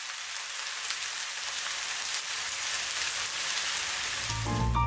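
Fusilli in tomato and mushroom sauce sizzling in a non-stick frying pan, a steady hiss with small pops, still going just after the hob has been switched off. A music jingle with a bass beat comes in near the end.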